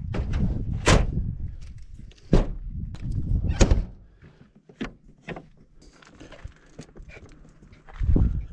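Toyota pickup tailgate and doors being handled: a sharp slam about a second in, two more hard knocks, then small clicks and a dull thump near the end as the cab door is opened.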